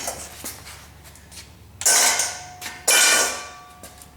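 Two sharp metal clanks about a second apart, each ringing briefly with a metallic tone as it fades, as metal tools or parts are knocked about during engine teardown.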